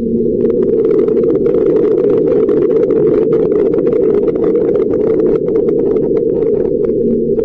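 Audio recorded on the surface of Mars by a rover's microphone: a steady low rumble overlaid with many rapid, irregular clicks and knocks.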